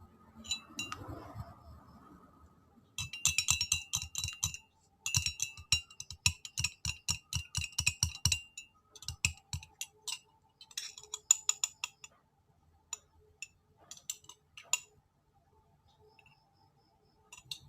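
A spoon clinking against a drinking glass as a drink is stirred, in two quick runs of ringing clinks a few seconds long, then a scattering of lighter single clinks and taps.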